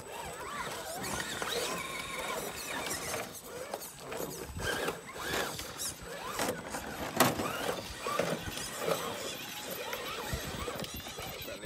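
Electric drive motor and gearbox of an Element Enduro Ecto RC rock crawler whining as it crawls over boulders, the pitch gliding up and down with the throttle. A few sharp knocks come in between, the loudest about seven seconds in.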